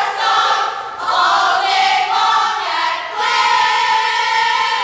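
A group of voices singing together a cappella in unison, in held notes of about a second each with short breaks between them.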